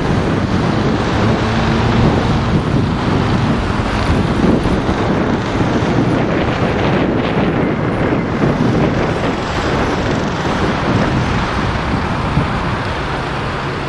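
Loud, steady wash of city street traffic noise, mixed with wind buffeting the microphone.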